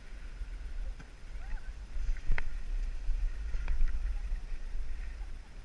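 Wind buffeting the microphone of a camera moving down a ski slope: a low rumble that grows louder in the middle, with three faint clicks.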